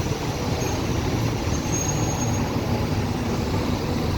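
Steady low rumble of road vehicle noise, even throughout.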